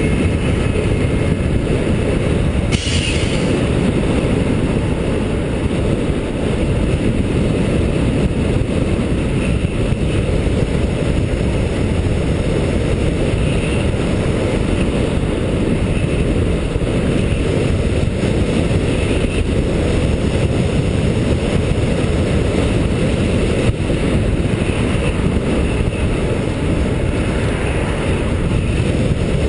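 Wind rushing over a GoPro camera's microphone on a fast electric bike ride: a loud, steady low rumble with no clear motor tone, and a short hiss about three seconds in.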